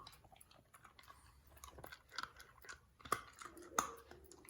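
A dog chewing hard food: faint, irregular crunches.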